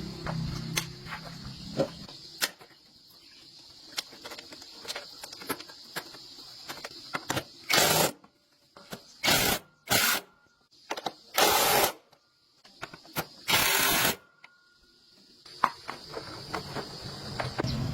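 Scattered clicks and taps of hand work on metal parts, with five short bursts of hiss in the second half, each under a second long.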